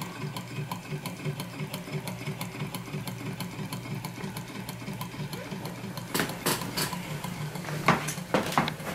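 Reichelt model Stirling cycle engine running, its flywheel and linkage making an even, quick ticking over a low pulsing hum. A few louder knocks come about six seconds in and again near the end.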